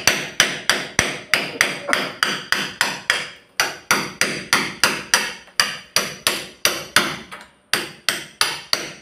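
Steady hammer blows, about three a second, each ringing briefly. There is a short pause about a third of the way in and another near the end.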